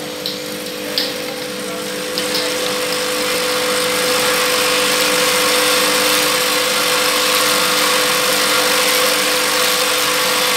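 Vibratory bowl feeder loaded with plastic screw caps, running: a steady hum with the caps rattling against the steel bowl and track as they feed around the spiral. The rattle grows louder about three to four seconds in, and a few sharp clicks come in the first couple of seconds.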